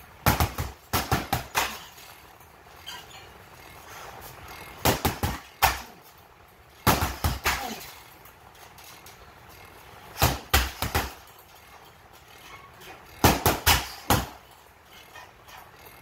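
A pair of training sticks striking a hanging heavy bag in quick flurries of four to six hits, five flurries a few seconds apart.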